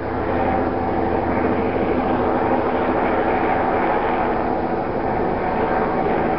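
Light two-bladed helicopter flying overhead, its rotor beating steadily over the engine's hum, holding a constant level as it circles.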